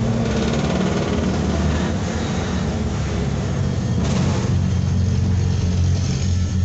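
A steady low mechanical drone that goes on throughout without let-up.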